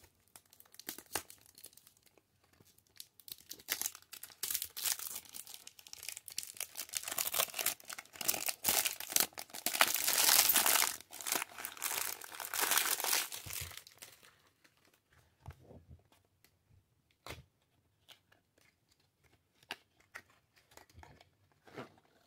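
Plastic wrapping being torn and crinkled off a cardboard perfume box, a dense crackle that builds and stops about two-thirds of the way through. After that come a few light clicks and cardboard rubs as the box is opened and the glass bottle is slid out.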